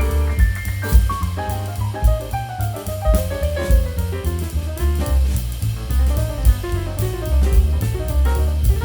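Background music: an upbeat jazzy track with drum kit, bass and a melodic lead line.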